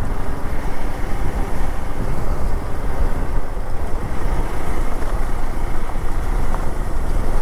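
Hero Xpulse 200 4V's single-cylinder engine running steadily as the motorcycle is ridden at an even pace, heard with constant road and riding noise.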